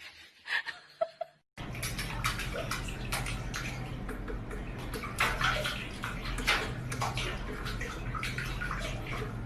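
Water running and splashing, with many small irregular splashes over a steady wash of noise, starting suddenly about a second and a half in.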